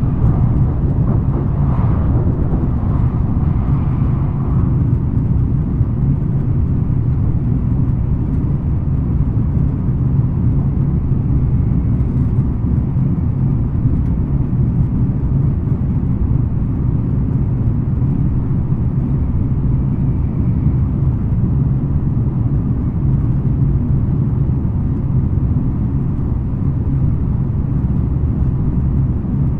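Running noise inside a JR West N700 series 5000 (N700A) Shinkansen car, the train holding steady speed: a constant low rumble of wheels on rail with no rise or fall in pitch, and a brief higher hiss a couple of seconds in.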